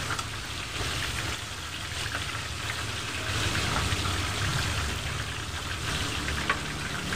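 Coated chicken pieces deep-frying in hot oil in a wok: a steady, dense crackling sizzle.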